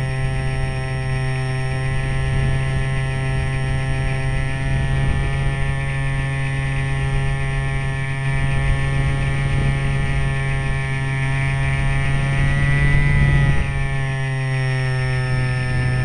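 Remote-control plane's motor and propeller, recorded by the onboard camera in flight: a steady droning hum with many overtones, under rough rushing wind noise. The pitch rises a little and then drops back about two seconds before the end.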